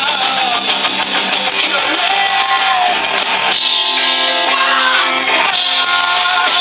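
Live rock band playing, with electric guitar and a male singer's voice over it; about halfway through the band settles into a held chord.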